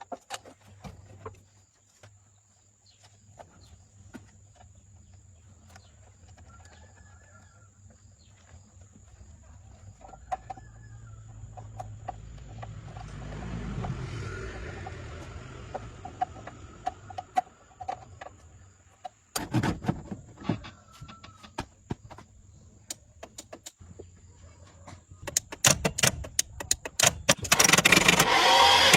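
Low background hum with a few faint short chirps and scattered knocks and clicks; near the end a burst of clicks leads into a car engine cranking and starting.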